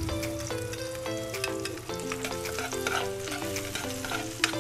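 Minced garlic sizzling and crackling in hot oil in a frying pan, stirred with a metal spoon that clicks against the pan. A simple background music melody plays underneath.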